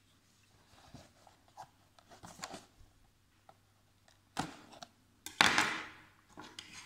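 Packaging of a die-cast model car being handled and opened: scattered small clicks and rustles, a sharp click about four seconds in, then a louder, longer scraping rustle just after.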